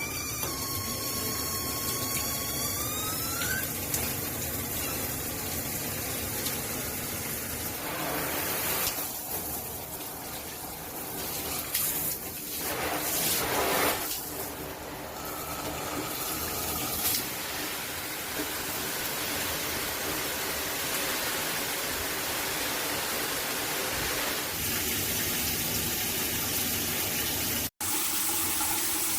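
Water spraying steadily from a HammerHead all-metal dual shower head set, an even hiss of running water, with a brief rising whistle in the first few seconds. It cuts off abruptly near the end.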